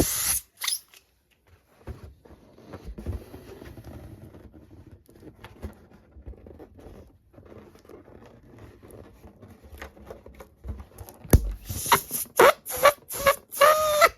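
Small latex balloons being handled and rubbed together: soft rustling and scattered clicks. In the last couple of seconds comes a quick run of sharp clicks and short rubbery squeaks.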